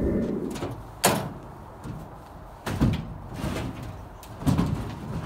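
Homemade plywood sled deck on treated-lumber runners being pulled out of a pickup truck bed: a sharp wooden knock about a second in, then two heavier knocks with scraping as it slides out.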